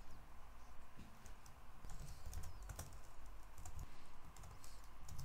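Typing on a computer keyboard: a run of irregular key clicks as a line of code is entered.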